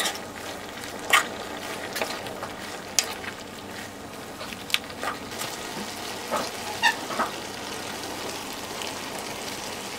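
Stir-fry sizzling in a steel wok while a metal spatula tosses it, with sharp metallic clinks of the spatula against the wok about eight times over the first seven seconds; after that only the steady sizzle.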